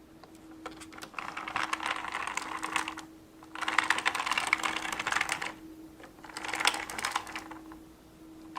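Rapid clicking and clattering of plastic toy parts being handled, in three bursts of about one to two seconds each, over a faint steady hum.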